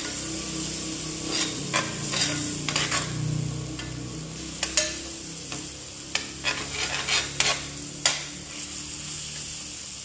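Sliced onions and whole garlic cloves sizzling in a cast-iron skillet while being stirred with a metal spatula, which scrapes and clicks against the pan at irregular moments. The onions are cooking down toward translucent.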